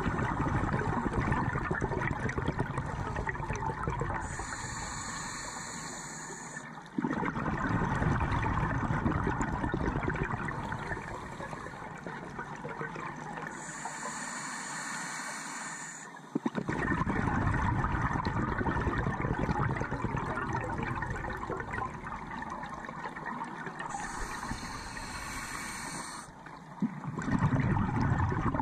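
Scuba diver breathing through a regulator, heard from inside the camera's underwater housing: long bursts of exhaled bubbles gurgling and rumbling past, with a shorter high hiss of each inhalation between them, about one breath every ten seconds.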